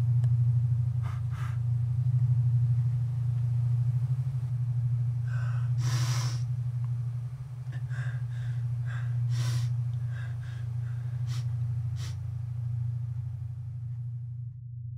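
A person's sharp breaths and gasps, a couple early, a longer one about six seconds in and a quick run of them after that, over a steady low hum. The breaths stop about a second before the end while the hum goes on.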